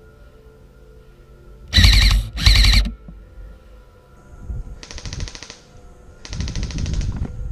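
Airsoft electric rifles (AEGs) firing on full auto: two short, loud bursts about two seconds in, then two longer, quieter rapid-fire bursts in the second half.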